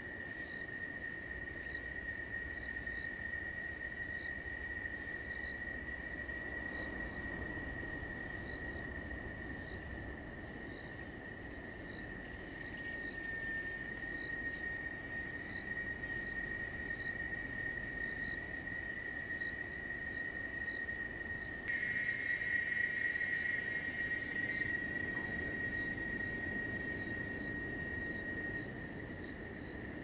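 Insects trilling in a steady chorus: one high, unbroken trill throughout, with scattered faint chirps. A little over two-thirds of the way in, a second, still higher hissing buzz joins and the chorus grows louder.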